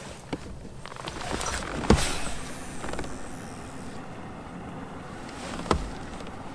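Handling knocks and bumps on a plastic fishing kayak: a few sharp knocks, the loudest about two seconds in and another near the end, over a rustling, sloshing wash.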